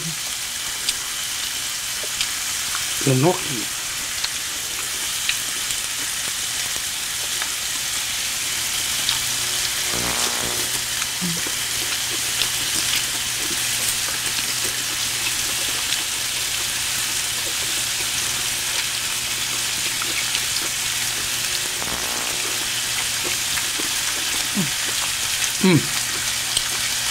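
Pork belly sizzling steadily on a tabletop grill pan.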